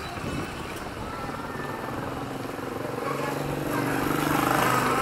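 A motorcycle engine running steadily as it passes close by, getting louder over the last two seconds.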